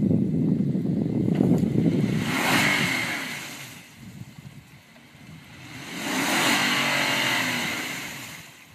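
Off-road vehicles driving past twice, engine and tyre noise swelling and fading away, the first pass about two seconds in and the second about six seconds in, with a low rumble at the start.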